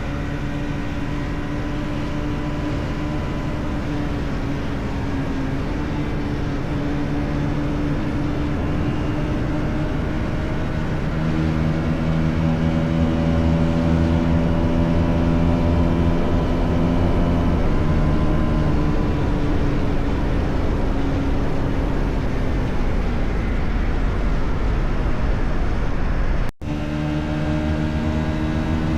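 Bajaj Pulsar NS400Z single-cylinder engine and exhaust under way on the ride. The note runs steadily, gets louder with a step up in pitch about eleven seconds in, and eases a little around eighteen seconds. It breaks off for an instant near the end.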